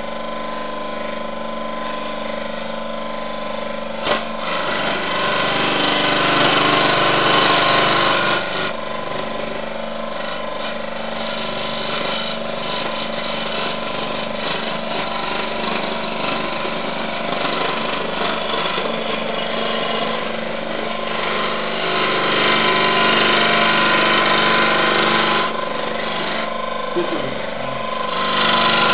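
Proxxon DSH scroll saw running with its blade reciprocating through 2 mm aluminium sheet: a steady motor hum under a metallic cutting hiss that grows louder in stretches, with a single click about four seconds in.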